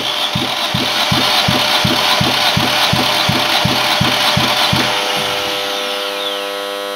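Opel Z16XEP 1.6-litre 16-valve four-cylinder petrol engine cranked on its starter motor during a compression test on the first cylinder, pulsing evenly about four times a second. The cranking stops about five seconds in and the starter whine falls away.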